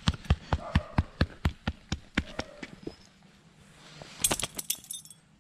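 Quick footsteps and paw taps on a concrete walk, sharp ticks at about four a second that fade out after a couple of seconds. About four seconds in comes a short metallic jangle as a chain-link gate is handled.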